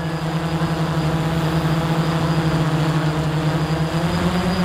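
Hubsan X4 Pro quadcopter's propellers buzzing steadily at one pitch while it flies low.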